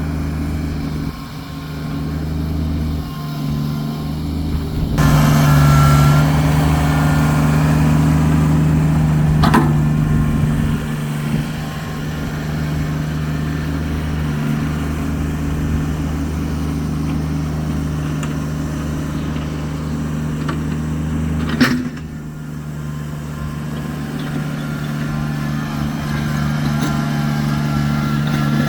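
Kubota tractor's diesel engine running steadily. About five seconds in it gets louder and noisier for several seconds. There are two sharp knocks, one about ten seconds in and one about twenty-two seconds in.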